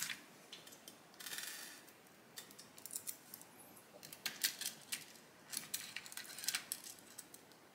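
Faint, scattered small metallic clicks and clinks, with a brief scrape about a second in: hands unscrewing terminal nuts and handling thin laminated copper bus bars on the terminals of LiFePO4 prismatic cells.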